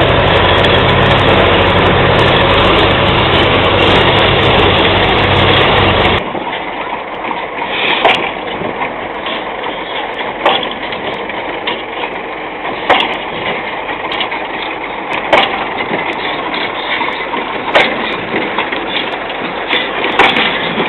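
An engine running steadily that cuts off suddenly about six seconds in. After that comes a quieter background with a sharp knock about every two and a half seconds.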